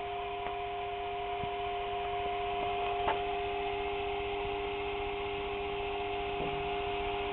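Steady electrical hum, two tones held level over a faint hiss, with a couple of faint clicks.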